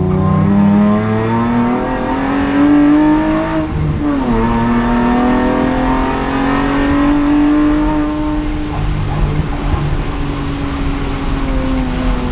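Race car engine heard from inside the cockpit, pulling hard with rising revs, then a quick drop in pitch about four seconds in as it shifts up. It then pulls again more gently and the revs ease slowly down near the end.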